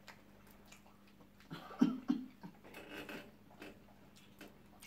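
People chewing food at close range, with small wet mouth clicks and smacks, and a few short voiced mouth sounds, like a hum or a brief laugh, about a second and a half to two seconds in.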